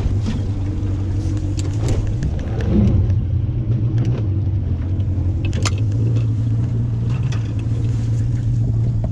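Motorboat engine running steadily under way, a low even drone, with a few sharp knocks scattered through.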